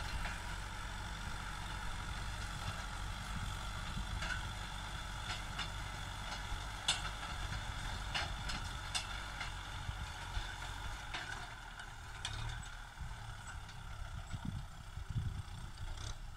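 Tractor engine running steadily as it pulls a tillage implement through dry ploughed soil, with a few light clicks over the steady rumble.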